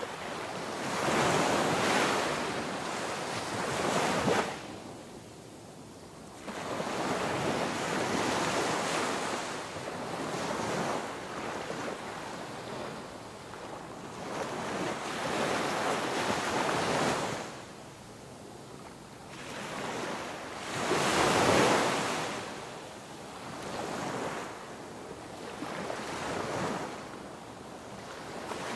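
Ocean waves breaking and washing on a shore, the surf swelling and falling away every few seconds, with the loudest break about two thirds of the way through.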